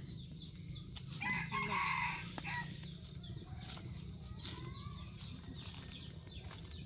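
A rooster crows once, starting about a second in and lasting about a second and a half, over many short chirps from small birds.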